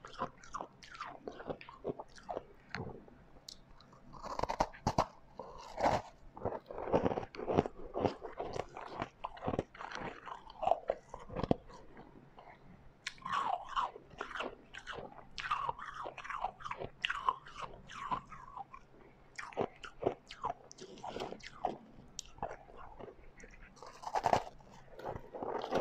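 A person biting and chewing refrozen white ice: irregular crunches and cracks in quick runs, with short pauses between bites.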